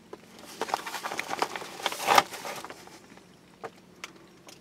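Rustling and crunching of a person crawling over dirt, debris and crumpled insulation backing in a crawlspace, then a few faint separate clicks near the end.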